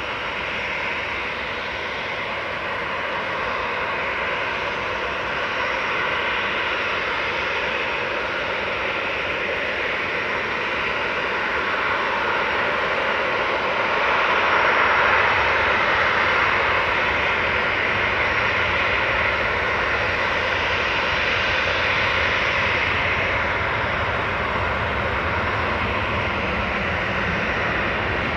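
Jet engines of a Boeing 737-500 running with a steady rushing noise, growing louder and deeper about halfway through.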